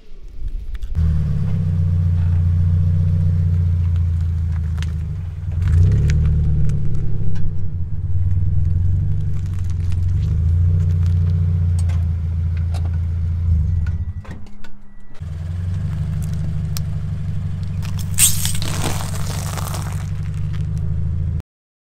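A car's engine runs with a steady low hum as the car creeps forward and its tyre rolls over a toilet-paper roll soaked in yellow liquid. After a short break the tyre crushes a pile of crackers, with a crunch about three-quarters of the way through, and the sound then cuts off suddenly.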